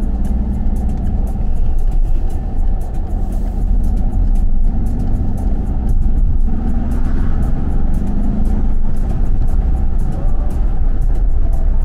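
A car driving along, heard from inside the cabin: a steady engine and tyre rumble.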